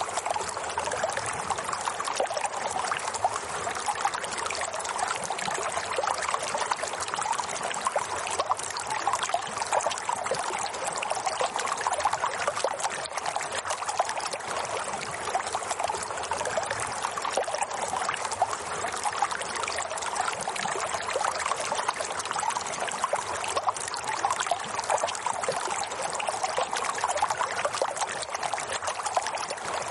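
Running water trickling and babbling steadily and unbroken, full of fine splashing detail.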